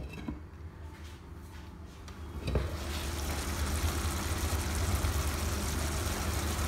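A glass pan lid set down on a frying pan with a brief clink. Then, about two and a half seconds in, boneless chicken starts to sizzle and simmer steadily in its own released juices, with no water added.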